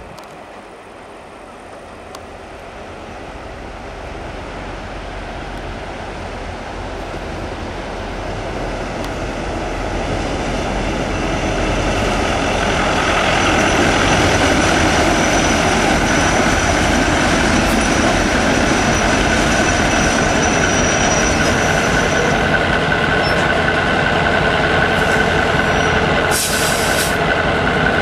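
SŽ class 664 diesel locomotive's EMD two-stroke engine drawing closer with a freight train. It grows louder over the first dozen seconds, then runs steadily with a high whine. A short, sharp hiss comes near the end.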